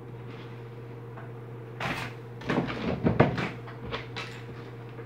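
A few short knocks and rattles from handling the plastic column of a pedestal fan and its wiring, bunched between about two and four seconds in, over a steady low hum.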